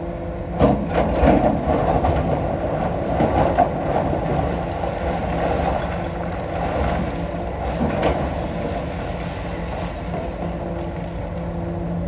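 Komatsu PC220-6 excavator's diesel engine running steadily, with rock knocking and scraping against the bucket in bursts of clatter about a second in, again around three to four seconds, and once near eight seconds.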